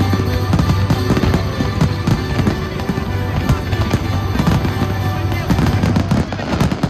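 Fireworks crackling and banging in rapid, continuous succession over loud music.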